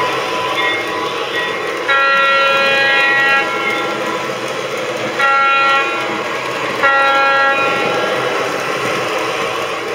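Lionel FT diesel's RailSounds speaker sounding its recorded diesel horn three times, a long blast followed by two shorter ones. Underneath is the steady running noise of the toy train's motors and wheels on the three-rail track.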